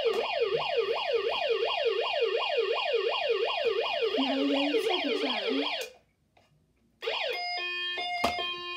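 Electronic siren of a 1990 Servco toy fire truck sounding a fast rising-and-falling yelp, about three and a half sweeps a second. It cuts off about six seconds in, and after a second's pause it comes back as a two-tone high-low siren.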